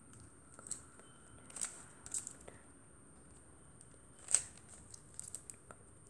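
3x3 Rubik's cube being turned by hand: irregular plastic clicks and clacks as its layers are twisted, the sharpest one a little after the middle.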